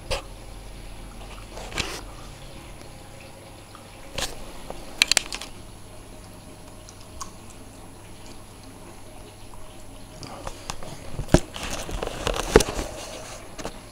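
Samsung WF9700N3W front-loading washing machine on its wool cycle: a low steady motor hum under the wet load of blankets sloshing and flopping in the slowly turning drum every few seconds, with a quieter stretch in the middle.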